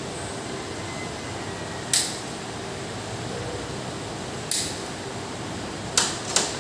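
Four sharp metallic clicks from a wrench as bolts are tightened on a bare Range Rover engine block: one about two seconds in, one near the middle, and two close together near the end, over a steady background hiss.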